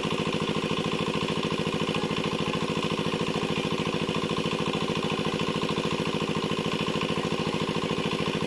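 Small engine running steadily at an even speed, with a fast, regular pulse.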